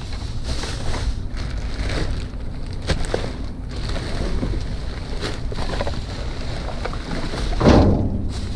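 Items being rummaged through and knocked about in a dumpster, with scattered knocks and one louder clatter near the end, over a steady low rumble.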